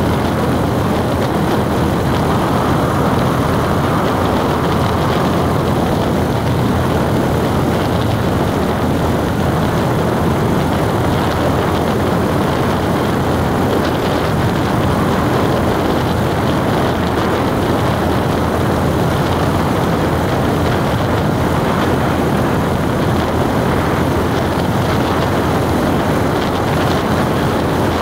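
Steady drone of a moving vehicle on the road: an even rush of tyre, engine and wind noise.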